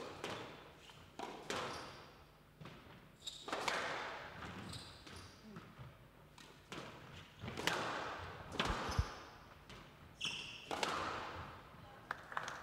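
Squash rally: the ball cracks off rackets and the walls every second or two, each hit echoing around the court, with brief shoe squeaks on the wooden floor between shots.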